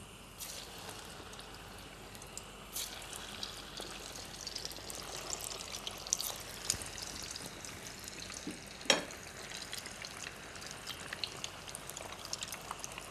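Corn kebabs deep-frying in hot oil, a steady sizzle full of small crackling pops. A single sharp knock stands out about nine seconds in.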